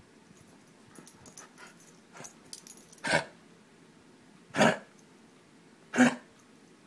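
Dog coughing: three short, loud coughs about a second and a half apart, after a few faint softer sounds. The coughing fit is brought on by activity.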